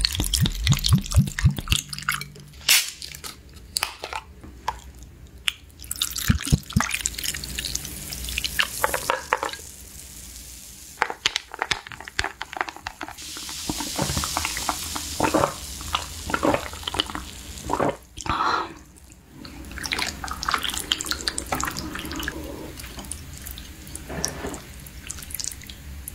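Soju glugging from a glass bottle into a glass mug of tonic water, followed by glassy clicks and close-miked sipping and swallowing from the mug.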